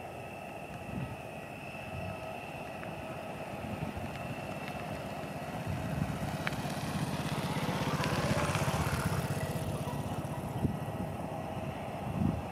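Twin jet engines of an Airbus A320-family airliner at takeoff thrust on the takeoff roll, a steady whine over a broad rush. It grows louder as the jet accelerates down the runway, loudest about eight or nine seconds in, then eases a little.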